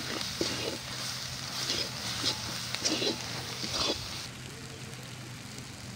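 Metal spatula scraping and stirring fried onions and spice paste around a metal wok, about five scraping strokes in the first four seconds, over a steady frying sizzle.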